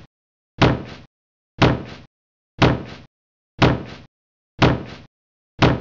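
A dubbed-in punch sound effect, the same sharp hit repeated six times at exactly one-second intervals, with dead silence between. Each hit has a quick second knock just after it and a short fading tail.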